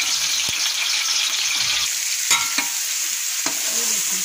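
Raw chicken pieces sizzling as they fry in hot ghee, stirred with a metal skimmer spoon. A few sharp metallic knocks from the spoon against the pot come through the sizzle.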